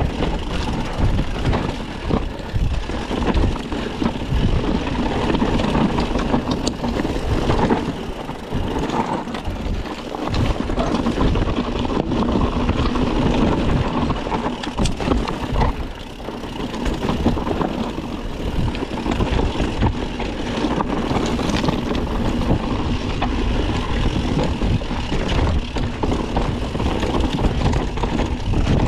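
Mountain bike riding fast down a dirt trail: tyres rolling and crunching over dirt and stones with a constant low rumble, and frequent knocks and rattles from the bike over bumps.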